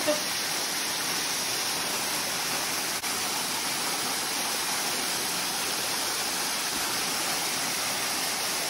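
Steady rush of a waterfall pouring down a rock face into a pool.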